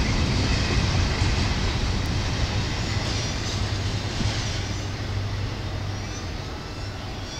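Double-stack intermodal freight train's well cars rolling over the rails, a steady low rumble that fades away as the end of the train passes.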